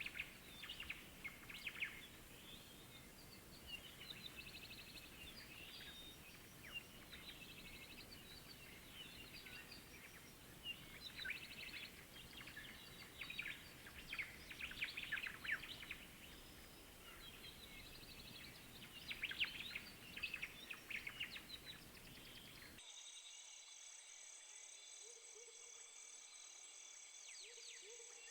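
A flock of parrots chirping and chattering in quick bursts of short calls, rising and falling in busyness. About 23 s in the sound cuts abruptly to a steady, pulsing high insect trill with a few scattered chirps.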